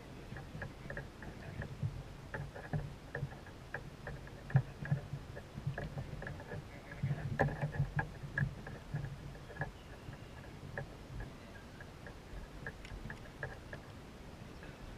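Sounds of a fishing kayak on the water: irregular light knocks and clicks against the hull, over a low sloshing of water, with the loudest knock about four and a half seconds in and a busier stretch a couple of seconds later.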